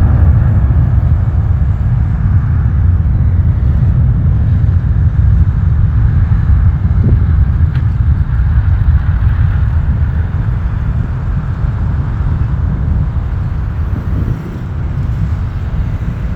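Airbus A320 jet engines during takeoff: a loud, steady low rumble that slowly fades.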